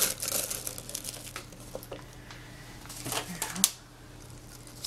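Handling noise from a plastic paint container being picked up and worked in the hand: crinkling and scattered clicks, with a sharp click a little past three and a half seconds in.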